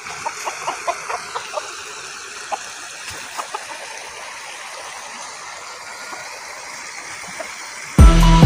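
Small muddy creek flowing, a steady wash of water noise, with a run of short chirps over it in the first second and a half and a few more later. Music starts abruptly near the end.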